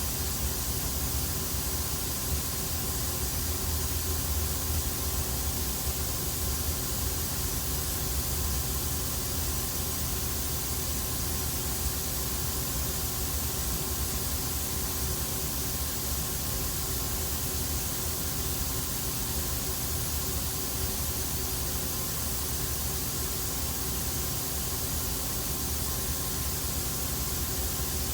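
Steady hum and hiss of a powered-up CNC lathe standing idle, its hydraulics and cooling fans running, with a few faint steady tones over a strong low hum.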